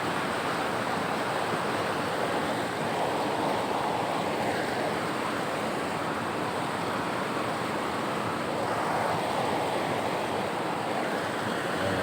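Fast-flowing mountain river rushing over rocks: a steady, unbroken rush of water.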